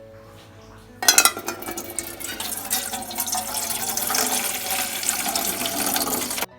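Running water, a loud steady rush that starts suddenly about a second in and cuts off near the end, over faint background music.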